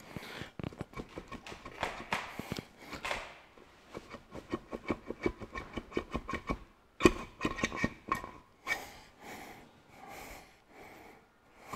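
Cast-iron cylinder head of a Ferguson 23C diesel being worked up off its studs: a run of rapid metal clicks and knocks as it catches on the studs, with a louder knock about seven seconds in. A man's heavy breathing from the effort of the lift.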